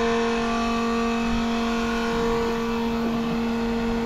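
Electric fuel transfer pump running with a steady hum, pumping fuel from a farm tank through the hose into a skid steer.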